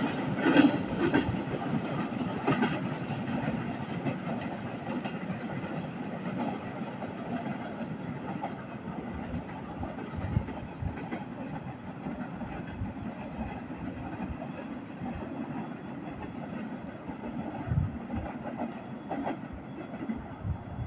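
A freight train of tank cars rolling past, its wheels clattering over the rail joints in a steady rumble that eases slowly.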